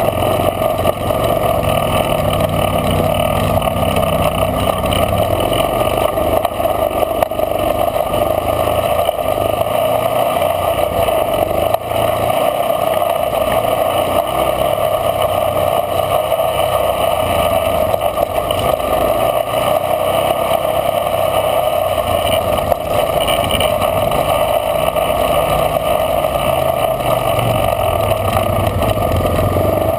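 Off-road ATV engine running at low trail speed, its low rumble rising and falling steadily.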